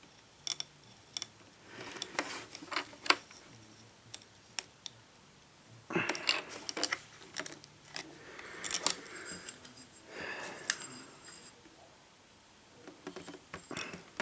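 Hands handling small radio parts: scattered light clicks and taps of metal and plastic as an SMA antenna connector is screwed on, with patches of rustling as the antenna and cables are moved.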